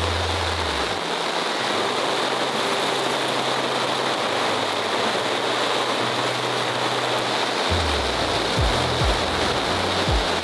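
Heavy rain falling steadily in a dense, even hiss. Background music with a bass line and kick drum drops out about a second in and returns near the end.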